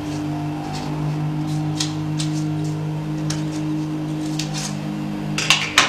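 A steady low hum of held tones, with a few light snips of scissors cutting the corners of paper, and a sharper cluster of snips near the end.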